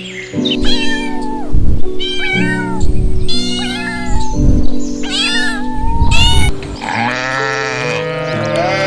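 A domestic cat meowing about five times in separate calls over background music; near the end a sheep starts bleating with a quavering call.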